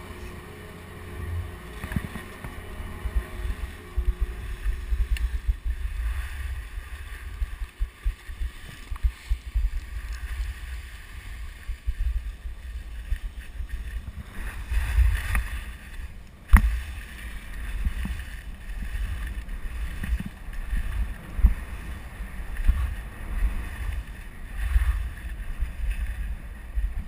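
Wind buffeting the GoPro's microphone in a gusty low rumble while skiing downhill, with the hiss of skis over snow swelling now and then. A single sharp knock a little past halfway.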